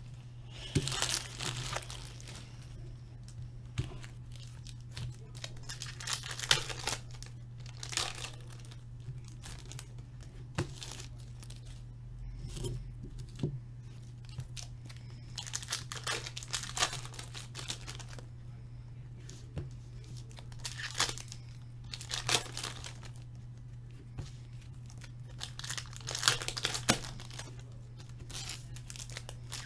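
Hockey trading-card packs being torn open and their foil wrappers crinkled, in irregular short bursts, with cards handled in between, over a steady low hum.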